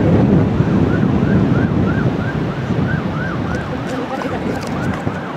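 Faint emergency-vehicle siren on a fast yelp, its pitch rising and falling about two or three times a second and fading out near the end, under heavy wind buffeting on the microphone.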